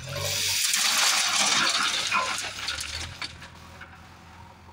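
Crushed-stone railway ballast pouring from a JCB backhoe loader's front bucket into a steel hopper wagon: a loud clattering rush of stones that builds over the first second and fades out about three seconds in. A diesel engine runs underneath.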